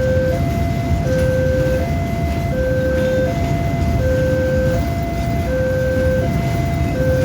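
An electronic two-tone siren going back and forth between a low note and a higher note, each held about three-quarters of a second, over a steady low rumble.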